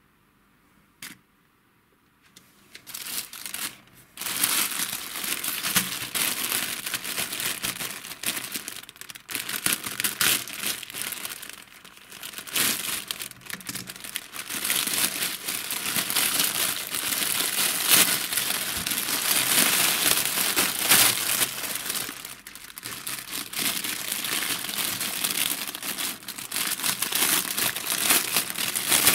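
Thin plastic mailer bag being handled and torn open by hand: continuous crinkling and rustling of plastic, starting after about two seconds of near silence broken by one short click. Near the end, a clear plastic bag of foam balls is handled and crinkles too.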